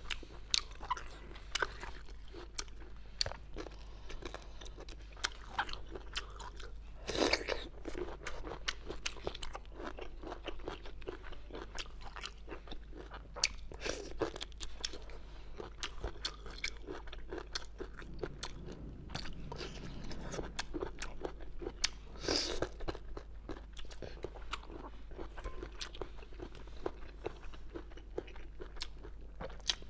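Close-miked crunching and chewing of bamboo shoot: a run of crisp bites and mouth sounds, with a few louder crunches spread through.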